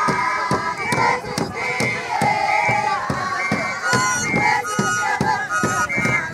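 A crowd of Zulu girls and women singing and calling out in many overlapping voices, with high, held cries, over a quick, steady run of sharp percussive beats from the dance.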